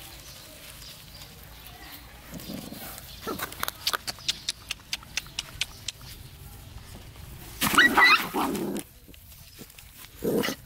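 Puppies eating rice out of styrofoam food boxes: a run of quick, sharp clicks and smacks of chewing and of the foam boxes being nudged, then, about eight seconds in, a short loud call from a puppy.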